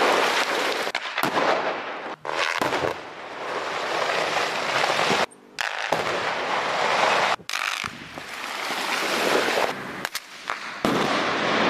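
Explosive rock blasting on a highway cut slope: the blasts and the rush of shattered rock and debris falling, in several separate stretches that each cut off abruptly.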